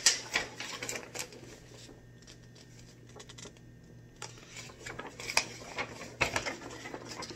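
Paper rustling and crinkling as a large magazine sheet is lifted, held up and swung back down, in two bouts of quick rustles with a quieter pause in between.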